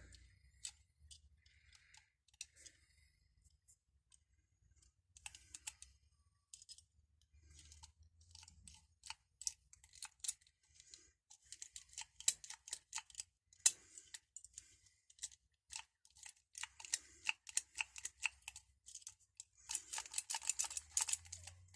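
Key being jiggled and turned in a rusted, seized padlock: scattered small metallic clicks and rattles, sparse at first, then coming thick and fast around the middle and again near the end.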